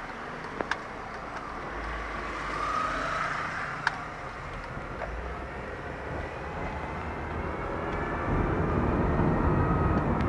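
2008 Honda Civic LXS automatic accelerating, its noise growing steadily louder and heavier near the end, with a whine that rises in pitch about three seconds in and a few sharp clicks. This is the strange noise under acceleration whose cause the owner does not know.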